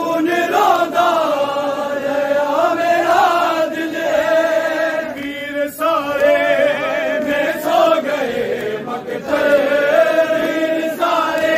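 Men's voices chanting a noha, a Shia mourning lament, in long, drawn-out sung lines that bend in pitch without a break.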